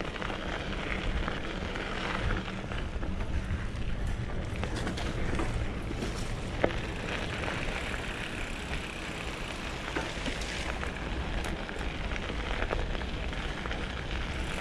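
Mountain bike rolling along a gravel track: tyres crunching on loose stones, with scattered small clicks and rattles from the bike, over a steady rumble of wind on the microphone.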